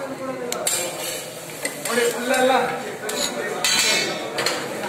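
Metal spatula and serving utensils clinking and scraping against a dosa griddle and steel serving pots, with a few sharp metallic clanks.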